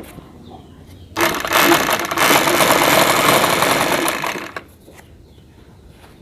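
Black straight-stitch sewing machine running a short test seam for about three and a half seconds, starting about a second in and stopping abruptly. It is checking the upper thread tension, which has just been tightened to stop the thread bunching under the fabric.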